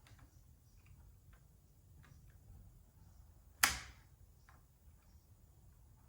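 Light metal ticks and taps from handling a bike drive chain at its master link, with one sharp, loud click about three and a half seconds in.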